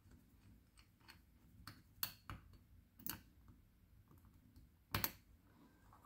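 Faint, scattered small metallic clicks and taps of a thin steel tool working at the back of a brass challenge-lock cylinder, pressing in the detent pin that holds the tailpiece. The clearest tap comes about two seconds in and a quick double click about five seconds in.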